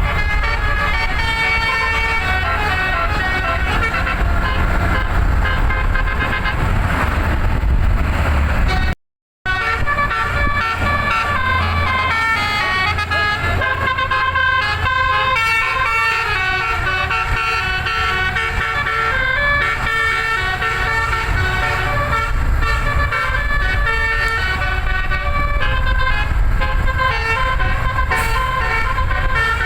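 Indonesian telolet bus horn: a roof-mounted Basuri multi-trumpet air horn playing a melody of stepping notes non-stop over a low engine rumble. The sound drops out for about half a second around nine seconds in.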